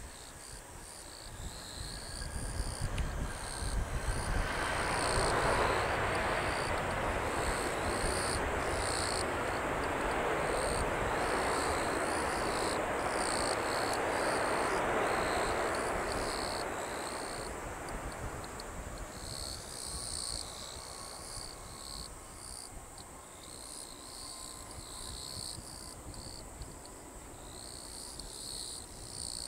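Airbus A319 jet engines roaring on the landing rollout. The roar swells about four seconds in, holds for about twelve seconds, then fades, typical of reverse thrust slowing the airliner after touchdown, and a faint engine whine lingers afterwards. Insects chirr steadily in pulses throughout.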